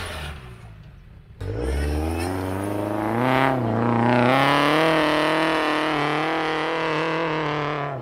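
Off-road 4x4's engine revving hard under load as it climbs a sandy slope: it comes in suddenly about a second and a half in, rises in pitch for about two seconds, then holds high and steady.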